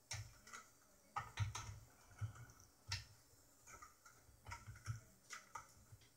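Faint, irregular clicks and light knocks of a circuit board and the metal mixer chassis being handled and set in place, some with a dull thud beneath them.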